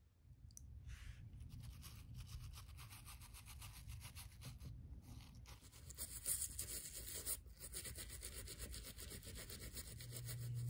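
Toothbrush bristles scrubbing a sandal's straps and sole in quick, even back-and-forth strokes, starting about a second in.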